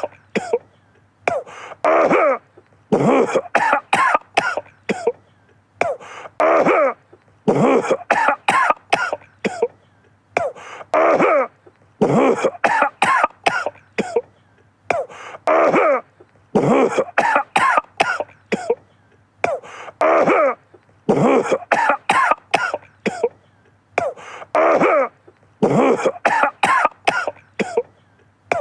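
A man coughing over and over in short fits of several coughs each, with brief pauses between the fits.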